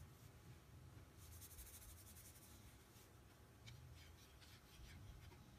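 Near silence with faint rubbing and scraping: a paper towel being handled, then a plastic spoon stirring doll food in a small plastic bowl, with a few light ticks.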